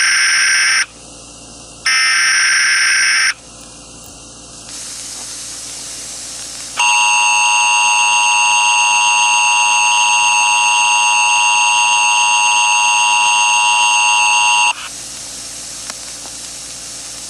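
Emergency Alert System broadcast tones: two short, loud bursts of SAME digital header screech, then hiss, then the steady two-tone EAS attention signal (853 and 960 Hz) held for about eight seconds before cutting off into static hiss.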